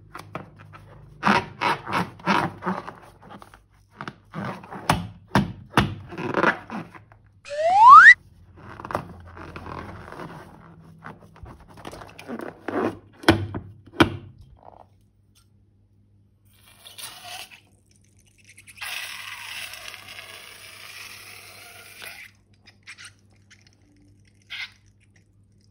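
Scrapes, taps and clicks of slime-making materials being handled. About eight seconds in comes a short, loud rising squeak, and later a hiss lasts about three seconds.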